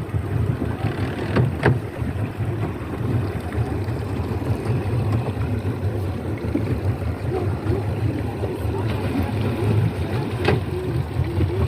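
Small boat's motor running steadily under way, with a few short sharp knocks.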